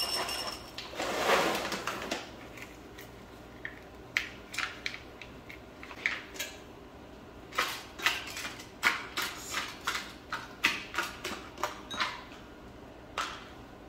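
Dry dog kibble poured from a foil bag into a ceramic bowl, a rattling rush over the first two seconds, followed by a scatter of light clicks and crinkles as the bowl and food packs are handled.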